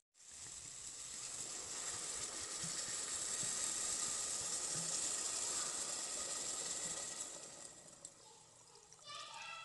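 Water poured from a glass jug into a hot aluminium pot of fried ingredients, hissing steadily as it hits the hot pot. The hiss swells and then eases off, and near the end the pour turns into a pitched gurgle as the pot fills.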